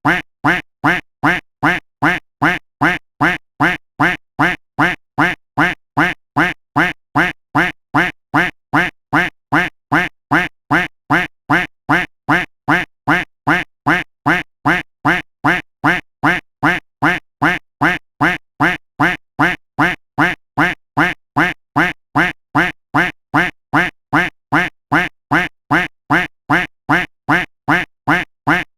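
A duck quack sound effect repeated over and over at an even pace, about two quacks a second, each quack identical.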